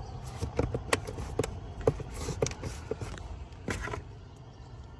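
Plastic cabin air filter access cover being hooked and clipped into the housing behind the glove box: a series of sharp plastic clicks, knocks and scrapes. The sounds stop about four seconds in.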